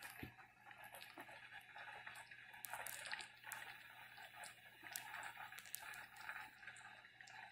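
Pot of beef soup simmering, with faint bubbling and scattered small pops from bubbles breaking at the surface.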